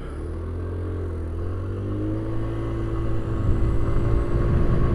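150cc scooter engine pulling away from a stop and accelerating, its pitch rising a little and the sound growing steadily louder as it gathers speed, with rushing air building toward the end.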